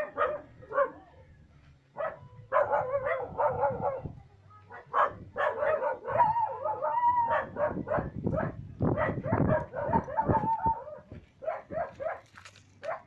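A dog barking and yipping in repeated bursts, with a few longer drawn-out whining calls in between.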